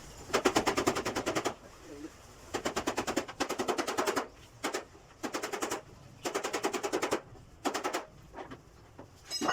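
A power tool rattling in short bursts of rapid strikes, about ten a second, stopping and starting six times.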